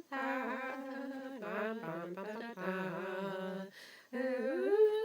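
A person's voice humming or vocalising a wordless tune in held, gliding notes, with a short breathy pause just before the four-second mark and a rising note near the end.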